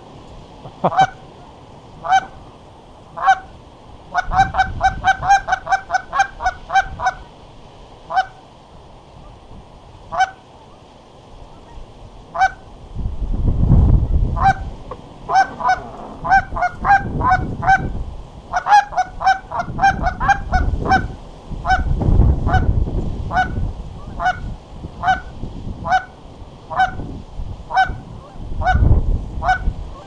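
Canada goose honking: short honks of the same pitch, some single and some in quick runs of about six a second. Gusts of wind buffet the microphone now and then.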